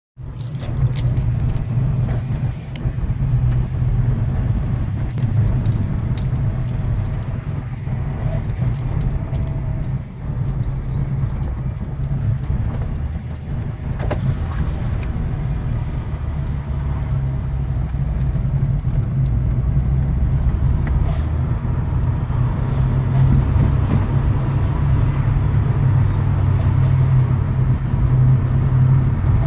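Opel Corsa D OPC's turbocharged four-cylinder running steadily, with frequent light clicks and rattles over it. From about twenty seconds in the sound grows slightly louder and fuller; this is where the owner says an unexplained strange noise becomes audible.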